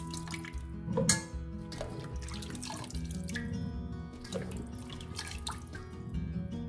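Water splashing and dripping as handfuls of washed muscadine grapes are lifted out of a bowl of water in a kitchen sink, with a louder splash about a second in. Background music plays underneath.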